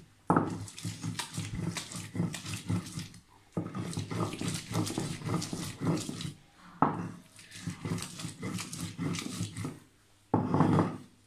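A stone batta rocked and rolled over a stone sil slab, grinding wet chutney paste: rough, rhythmic stone-on-stone grinding and scraping in long runs, with brief pauses.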